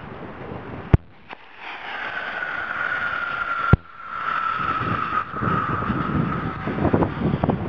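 Homemade sugar-propellant rocket motor on a skateboard burning with a loud hiss and a whistling tone that slowly falls in pitch, starting about one and a half seconds in and lasting about five seconds. The fuel burns fast because its sugar content was cut in half. There is a sharp crack partway through the burn.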